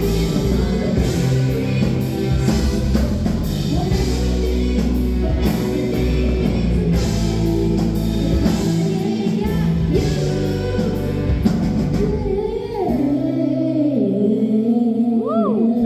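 Rock-style music with singing, a drum kit and guitar; about twelve seconds in the band thins out and long held, wavering sung notes carry on.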